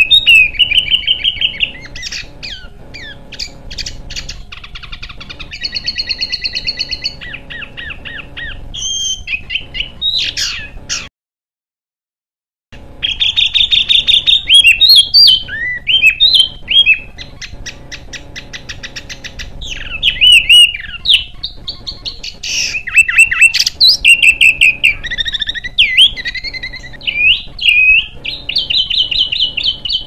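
Songbird song: loud, fast strings of high chirps, rattling trills and sharp whistled sweeps, phrase after phrase with hardly a pause. It cuts out completely for about a second and a half just after eleven seconds in, then starts again.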